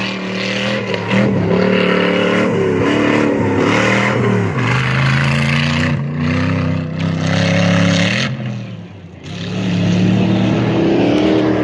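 Off-road 4x4 truck engines revving hard, their pitch repeatedly climbing and falling with throttle and gear changes. The engine note drops away briefly about nine seconds in, then climbs again.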